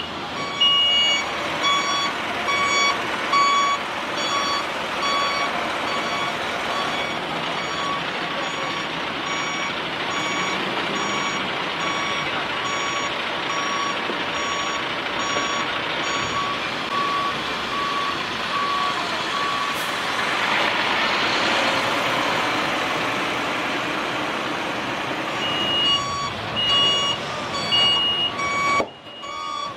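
Heavy truck's reversing alarm beeping repeatedly in a steady rhythm over the running truck, with a louder swell of rushing noise about two-thirds of the way through.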